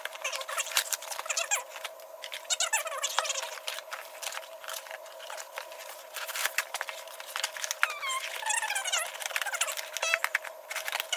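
Cardboard shipping box being handled and opened by hand: rapid crackling, scratching and rustling of the cardboard and packing.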